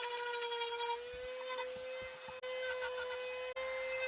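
Dremel 3000 rotary tool with a small carving bit running at a steady high whine while carving into a cedar plank, dropping out for an instant twice.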